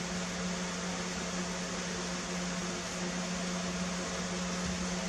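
Steady machine hum, fan-like: an even hiss with a low, unchanging drone underneath.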